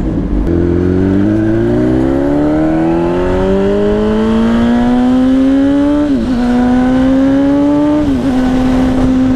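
Kawasaki ZX-10R's inline-four engine accelerating hard. Its exhaust note climbs steadily for several seconds, then dips sharply with an upshift about six seconds in and another about eight seconds in, and holds steady near the end.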